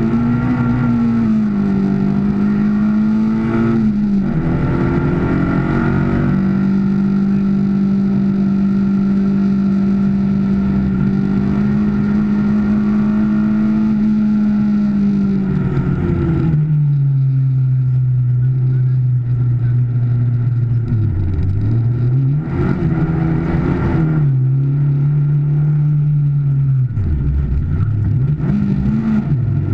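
Car engine under load, heard from inside the cabin while lapping a racetrack. The note holds at one pitch for a long stretch, drops in pitch and loudness about halfway through, then dips and rises several times as the car slows and accelerates through the corners.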